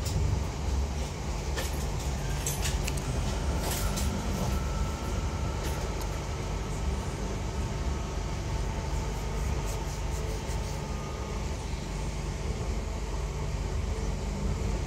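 Steady low rumble inside a Class 323 electric multiple unit's carriage as the train runs along, with a few sharp clicks in the first few seconds and a faint steady whine through the middle.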